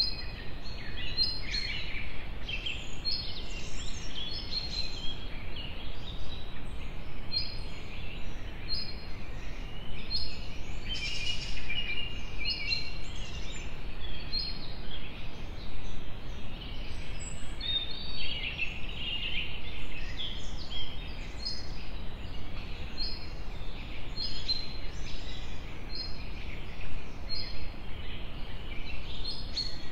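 Small birds chirping. One repeats a short high chirp about once a second while others twitter in between, over steady low outdoor background noise.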